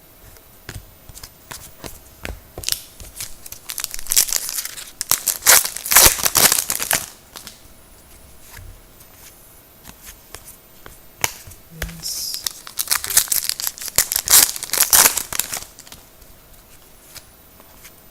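Foil wrapper of a trading-card pack being torn open and crinkled, in two spells: one a few seconds in and a second one past the middle, with scattered small clicks and rustles between them.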